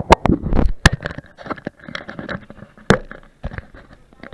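Irregular knocks, thuds and scrapes of a large off-road tyre being handled right beside the microphone. A cluster of heavy thumps comes in the first second and one sharp knock about three seconds in, with lighter clicks between.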